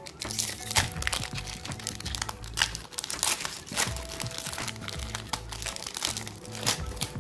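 Foil booster-pack wrapper crinkling and crackling in irregular bursts as it is torn open and the cards are pulled out, with background music underneath.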